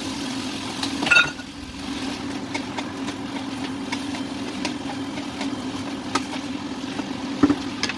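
Wooden utensils stirring and tossing stir-fried noodles in a wok, with scattered light knocks and scrapes against the pan, over a steady low hum. A sharp clink about a second in.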